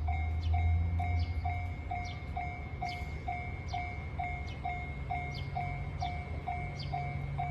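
Japanese railway level-crossing alarm ringing its electronic 'kan-kan' bell, about two even dings a second, warning of an approaching train. A low engine rumble runs underneath.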